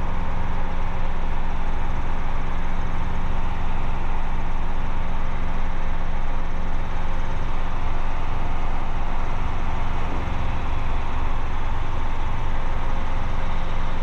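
Robinson R22 helicopter's four-cylinder piston engine and rotors running steadily in the cabin during departure, a constant drone with a low beat underneath.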